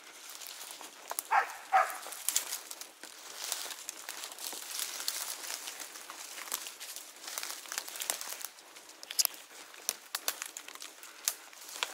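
Footsteps crunching through dry leaf litter and twigs, with brush rustling and snapping. Two brief loud sounds with a definite pitch stand out about a second and a half in.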